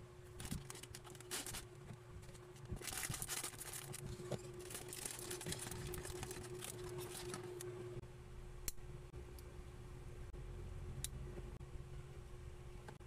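Thin plastic polybag crinkling and being torn open as the figure parts are taken out, followed by a couple of sharp clicks of plastic minifigure parts being snapped together.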